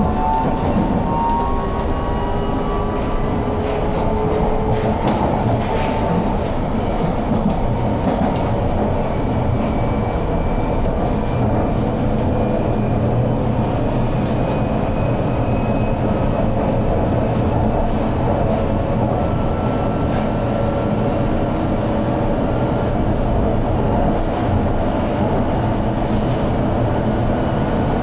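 London Underground Hammersmith and City line train running between stations: a steady rumble of wheels on rail, with a whine rising in pitch near the start and occasional clicks over the track.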